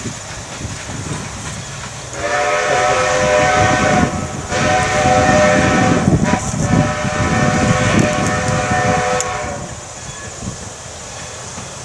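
Strasburg Rail Road No. 90, a 2-10-0 steam locomotive, sounding its steam whistle in three blasts, the last the longest, over the low rumble of the train running on the rails.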